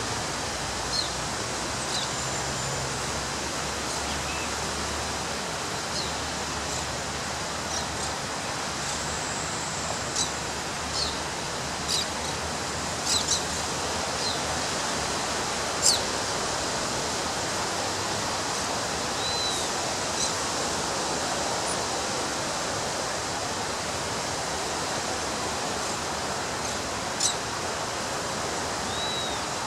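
Surf washing on a beach as a steady, even rush, with scattered short high bird chirps over it, the loudest about a third of the way in.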